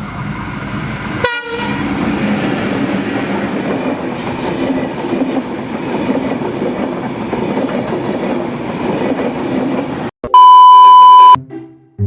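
A train horn sounds briefly, then a train runs by with a continuous rumble and wheel clatter for several seconds. Near the end comes a loud, steady beep-like tone lasting about a second.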